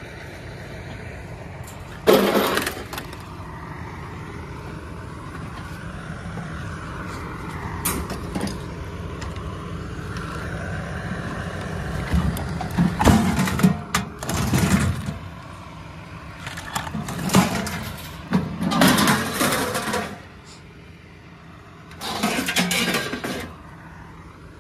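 Scrap metal clattering and scraping as pieces are thrown and dragged onto a wooden-decked trailer, in about six loud bursts, over a steady engine rumble.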